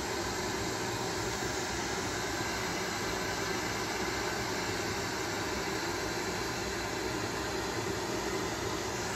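Steady, even background noise of air moving from a running room appliance.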